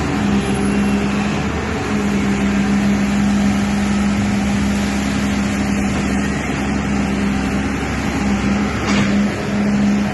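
Excavator running steadily, with a strong low hum that breaks off briefly a few times.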